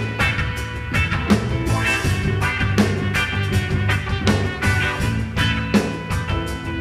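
Instrumental rock music with a steady drum beat, bass and guitar, before the vocals come in.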